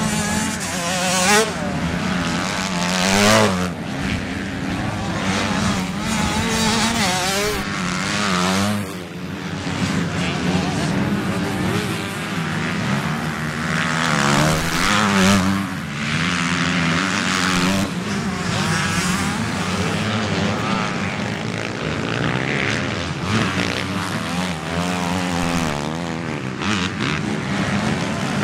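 Motocross bikes racing past on a dirt track, several engines revving up and down together as they accelerate and shift, with louder close passes about a second in, about three seconds in and around the middle.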